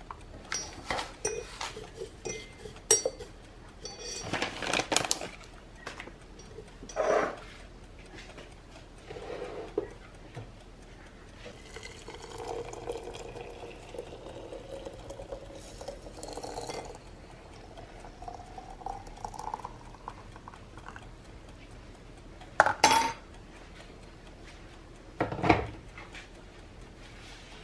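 Loose tea being spooned into a porcelain teapot with sharp clinks against the china, then hot water poured in from a kettle, its pitch rising as the pot fills. Near the end come two loud knocks of crockery set down.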